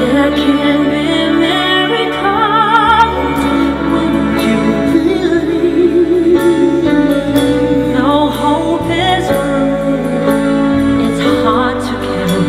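A woman and a man singing a slow pop ballad duet live, with long held notes sung with vibrato, over a band of drums, bass, electric guitar and keyboards.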